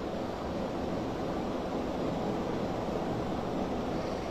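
Steady background noise, an even hiss and low rumble that holds level throughout, with no distinct events.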